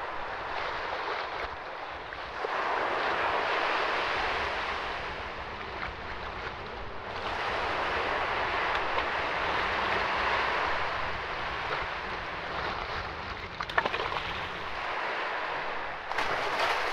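Lakeshore wind and water: a steady rushing noise that swells and eases every few seconds over a low rumble, with a couple of sharp clicks about fourteen seconds in.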